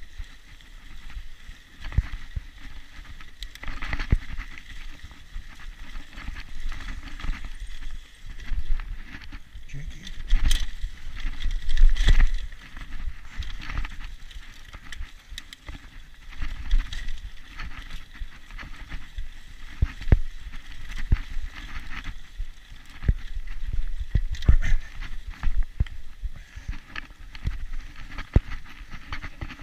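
Mountain bike ridden along a bumpy dirt trail: irregular clicking and rattling from the chain and frame over bumps, with tyre noise and gusts of wind rumbling on the microphone.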